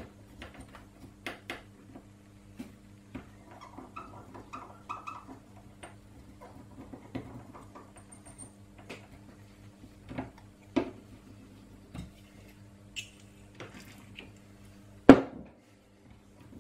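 Small clicks and taps of a soldered circuit board and its plastic card-edge connector being handled and fiddled with on a workbench, with one loud knock about fifteen seconds in. A faint steady low hum runs underneath.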